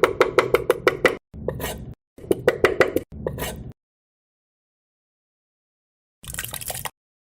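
Quick, evenly spaced knocks, about five a second, in several short runs broken by abrupt silences. They stop just before the fourth second, and a short noisy burst comes near the end.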